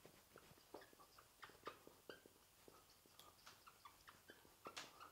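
Faint squeaks and taps of a marker writing on a whiteboard: a scattered run of short strokes, some with brief high squeaks.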